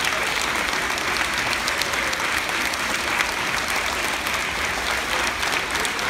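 A large crowd of schoolchildren and adults applauding, steady, sustained clapping of many hands.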